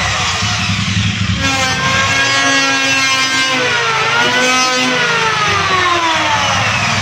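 Electric wood planer running with a loud motor whine. The pitch slides down at the start, jumps back up about a second and a half in, dips briefly around the middle, and slides down again near the end, over a steady low rumble.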